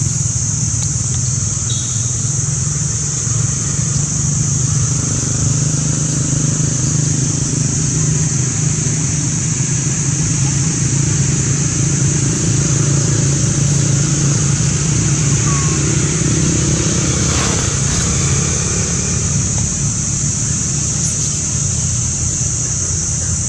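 Steady outdoor background: a continuous low motor hum like passing road traffic, with a constant high-pitched drone above it.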